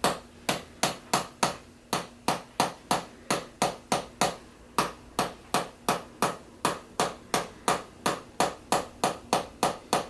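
Rhythmic percussive tapping by a chiropractor on a patient's body, sharp strikes at about three a second that keep going evenly throughout.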